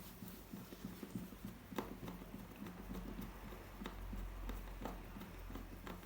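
Scattered light clicks and taps, a few sharper than the rest, of a screwdriver and screws on a laptop's plastic case during reassembly, over a low steady hum.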